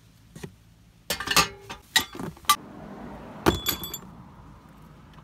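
A broken steel track bar from a Ford F-250 being laid in a car trunk, knocking and clinking against tools and a box several times. About three and a half seconds in comes a louder metallic clank that rings briefly.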